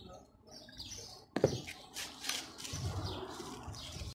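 Thin plastic bag rustling and crinkling as rompope is poured over a gelatin in it and the bag is twisted shut, with one sharp tap about a second and a half in.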